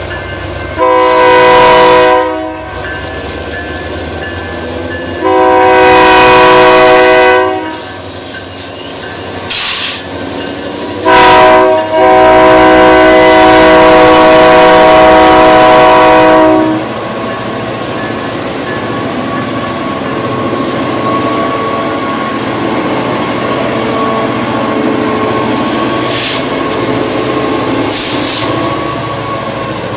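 Diesel locomotive air horn sounding the grade-crossing signal: two long blasts, a short one, then a long one, each a chord of several notes. After the horn stops, the locomotives and train run steadily through the crossing.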